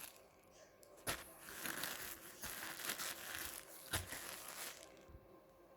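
Packaging crinkling as the packets of SMD capacitors are handled, from about a second in until near the end, with a sharp click partway through.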